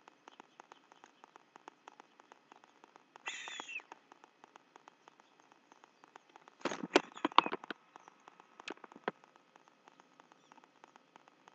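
Sharp knocks and taps from an adult white stork moving on its nest close to the microphone: a cluster about seven seconds in, then two single knocks. A faint, steady patter of tiny ticks runs underneath, and there is a brief higher squeak about three seconds in.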